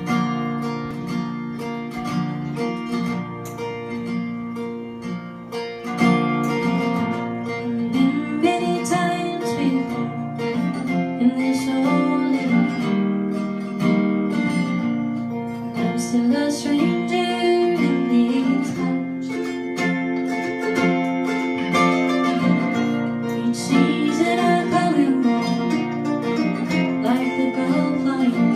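Live bluegrass-style band playing: strummed acoustic guitar with a sung melody that slides in pitch. The music grows louder and fuller about six seconds in.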